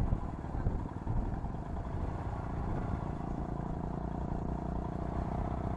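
Motorcycle engine running steadily while riding along a rough dirt track, heard from the rider's own seat. A thin steady whine joins it about halfway through.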